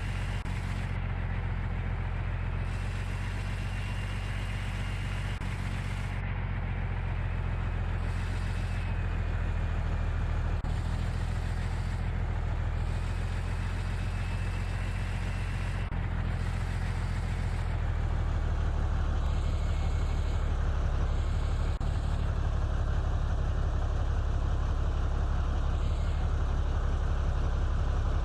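Truck engine running steadily, with a faint high whine above it; it gets a little louder about eighteen seconds in.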